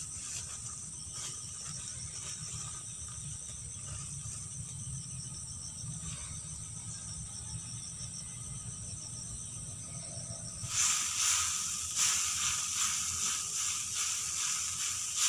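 Insects buzzing steadily in a high, fast-pulsing chorus over a low steady rumble. About two-thirds of the way in the chorus turns much louder and beats in a rhythmic pulse.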